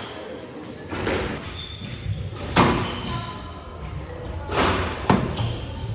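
Four sharp knocks and thuds echoing in a large squash hall, the loudest about two and a half seconds in and another near the end.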